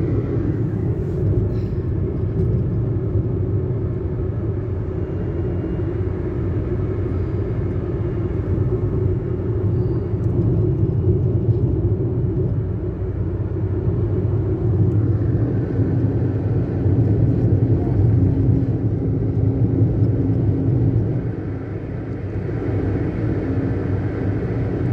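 Steady low rumble of a car's tyres and engine at highway speed, heard from inside the cabin, easing slightly near the end.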